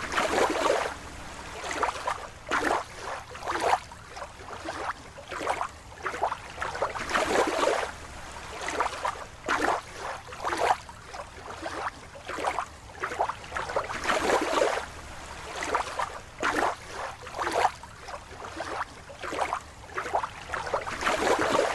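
Water splashing and sloshing in irregular bursts, roughly one a second.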